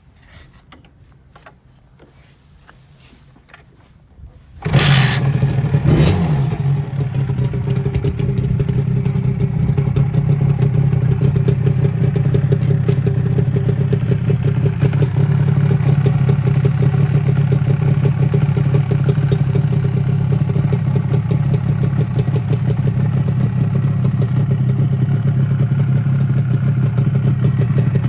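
Suzuki RG250Γ's two-stroke parallel-twin engine starting: after a few seconds of faint clicks it catches suddenly, is blipped once, then settles into a steady, rapid idle.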